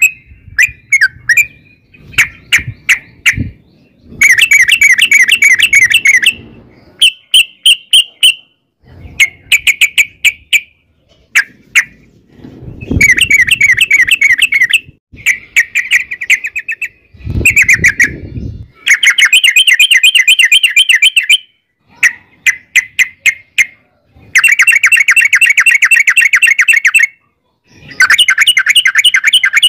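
Yellow-vented bulbul (trucukan) singing: burst after burst of rapid chattering notes, each run lasting one to three seconds with short pauses between. It is the long rolling 'ropel' song.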